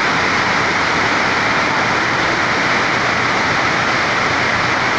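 Steady, even rush of water noise, unchanging throughout.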